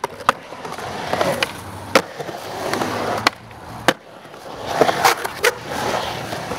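Skateboard wheels rolling over concrete skatepark ramps, broken by about half a dozen sharp clacks of the board striking the concrete and ramp edges.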